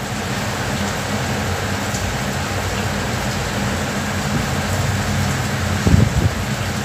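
Road traffic heard from inside a car stopped in slow traffic: a steady hum and hiss from idling engines and the street, with a brief low thump about six seconds in.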